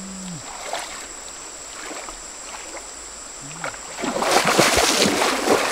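River water stirred by a person wading, then a loud splashing for about a second and a half, starting about four seconds in, as he lunges and plunges his hands into the shallow water.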